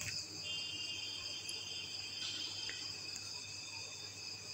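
Crickets trilling steadily in the background, several high continuous tones, with a faint low hum underneath.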